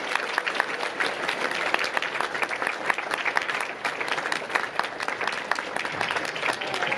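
Audience applauding, many hands clapping, with one person's claps standing out close by.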